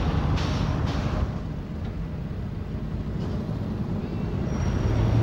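Steady low rumble of a car engine and street traffic, with a short hiss in the first second, swelling slightly near the end.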